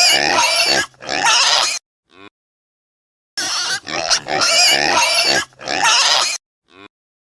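An animal's loud call, a rough pitched sequence about two seconds long ending in a short faint note, then the same call repeated once after a pause of about a second.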